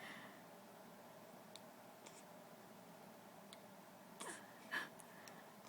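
Mostly near silence with a few faint ticks, then near the end a week-old baby's hiccup: two short, sudden little sounds about half a second apart, the first with a brief falling pitch.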